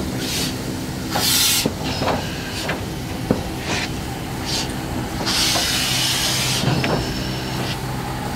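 Class 52.80 steam locomotive 52 8131-6 moving slowly. Steam hisses in several short bursts and one longer hiss about five seconds in, over a steady low hum, with occasional sharp knocks from the running gear.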